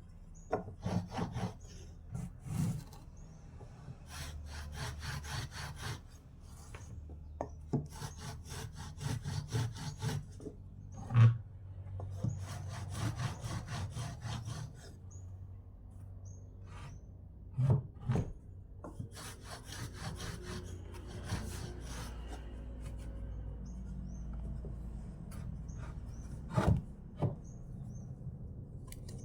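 Wood being worked with rapid back-and-forth rubbing strokes in bouts of a few seconds each, broken by a few sharp knocks on wood.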